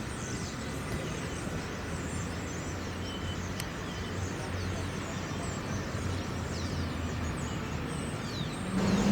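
Steady urban outdoor background noise of traffic and construction-site machinery, with a low hum and many short, high, falling chirps.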